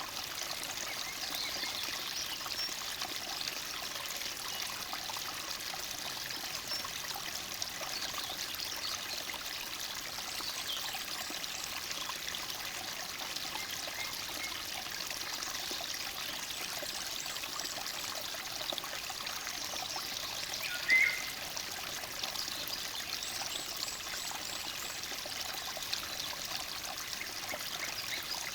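Forest stream burbling steadily, with faint birdsong over it and one short, loud chirp about three quarters of the way through.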